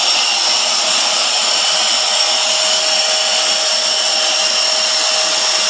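Dyson vacuum cleaner running steadily with a high whine over a rushing hiss, its purple wand held sealed against a person's lips so the suction pulls on them.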